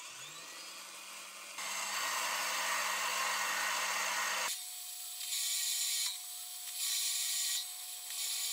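Mini metal lathe spinning up with a rising hum that settles into a steady hum, then its cutting tool turning a stainless steel rod with a hissy cutting noise. About halfway through the sound changes to a higher steady whine, with the cutting noise coming and going three times as the tool makes passes.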